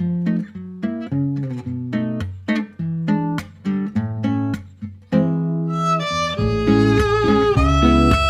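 Background music: a plucked acoustic guitar picking out notes, joined about five seconds in by sustained bowed strings and a steady bass.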